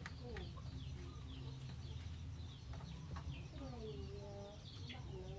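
Chickens calling: many short, high, falling peeps and chirps, with a few lower drawn-out calls a little past halfway, over a low steady hum.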